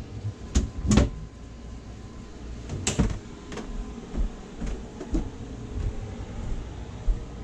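Footsteps on wooden boat steps and cabin floor: a run of irregular knocks and thuds, the loudest about a second in and again near three seconds.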